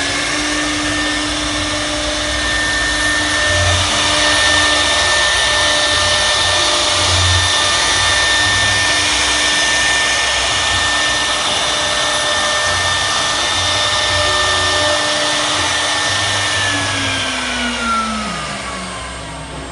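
High-speed CNC router running with a steady high whine over a rushing noise, then winding down with a falling pitch near the end.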